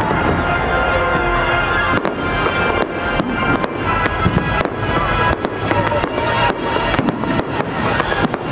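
Fireworks display: aerial shells bursting in a string of a dozen or so sharp bangs and crackles, coming faster toward the end.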